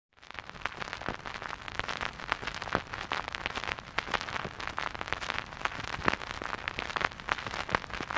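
Steady crackling noise made of many small, irregular clicks and pops over a dense hiss, starting abruptly after silence.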